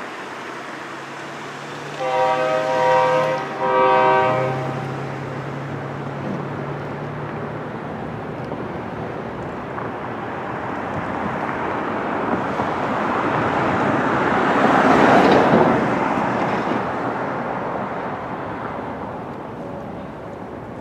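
An air horn blows twice, a long blast and then a short one. A vehicle then passes in a broad rushing rumble that builds to its loudest about fifteen seconds in and fades away.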